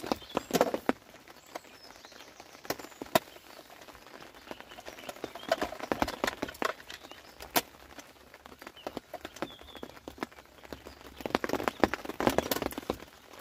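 Close rustling and irregular small clicks and taps of fishing tackle and clothing being handled, coming in three busier spells: near the start, around the middle and near the end.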